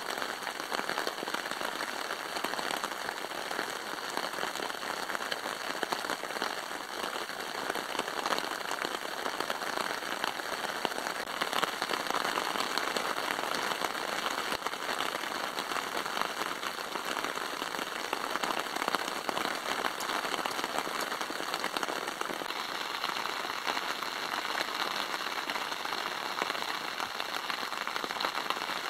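Steady rain falling on a tarp stretched overhead, heard from beneath it as a dense, even patter of many small drops.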